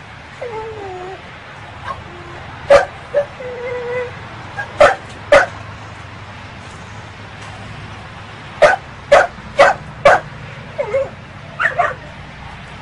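American pit bull terrier barking in short, sharp yaps that come in quick runs of two to four, with high, wavering whines in between.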